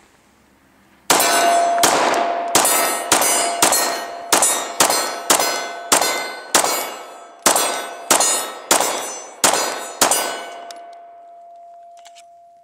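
Glock 19 Gen 4 9mm pistol firing about fifteen shots in steady succession, roughly two a second, with steel targets clanging at the hits. A ringing tone from struck steel goes on for a couple of seconds after the last shot.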